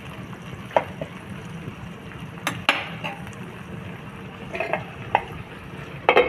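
Chicken in masala sizzling in a non-stick wok while a spatula stirs it, knocking and scraping against the pan several times. Near the end a glass lid clatters onto the pan.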